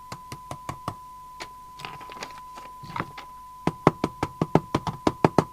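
A CB radio's speaker putting out a steady test tone while the set is tapped to provoke an intermittent receive fault: a few light taps at first, then a fast, louder run of about six knocks a second in the second half. The tone carries on unbroken, so the receive does not cut out.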